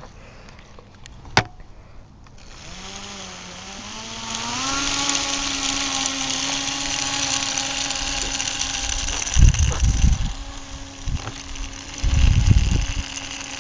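Small electric motor spinning the fan of a homemade fan-driven toy car: it starts a couple of seconds in, its whine rising in pitch and settling into a steady hum with a rush of air from the blades. A click just before it starts, and two short bursts of low rumble later on.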